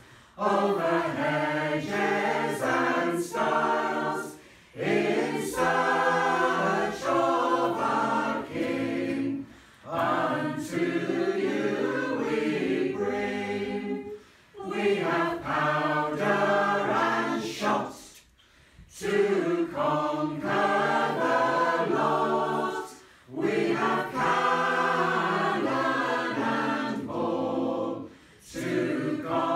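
Mixed choir singing a cappella, in phrases of about four to five seconds with a brief breath pause between each.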